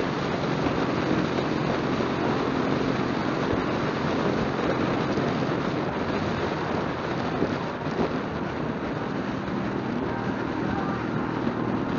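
Motorcycle engine running steadily at highway cruising speed under heavy wind and road noise, dipping slightly in loudness about eight seconds in.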